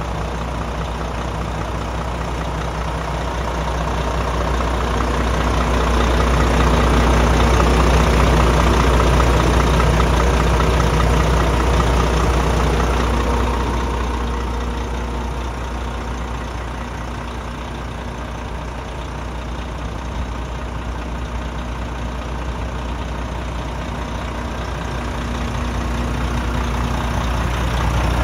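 Volvo FM410 truck's 13-litre inline-six diesel idling steadily, louder for several seconds midway.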